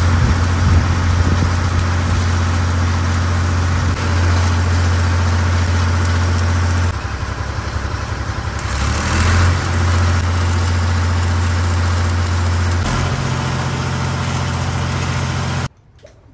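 Stick-welding arc crackling and hissing as a steel bracket is tacked in place, over the steady drone of an engine. The crackle drops off about seven seconds in and resumes a second or so later; the engine note steps up near the end, and the sound cuts off suddenly just before the end.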